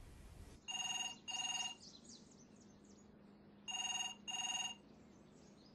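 Telephone ringing with the British double-ring cadence: two pairs of short electronic rings, the second pair about three seconds after the first. Faint bird chirps come between the pairs.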